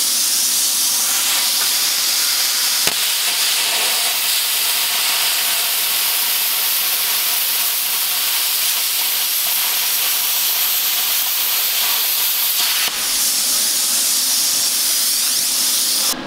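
Hand-held plasma cutter torch cutting through steel plate in one long pass: a loud, steady hiss of the arc and air that stops abruptly near the end as the torch comes off the cut.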